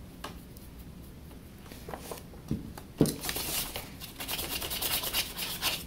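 Nearly dry paintbrush scratching in quick, irregular strokes over a carved wooden figure while dry-brushing acrylic paint onto it. The brushing starts about three seconds in, after a few faint taps.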